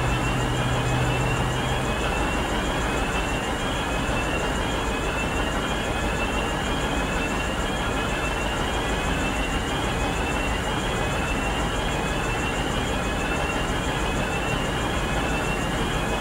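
VLocity diesel railcar idling at a standstill with a steady engine and fan noise. A faint rising chirp repeats about once a second, and a low hum drops out about two seconds in.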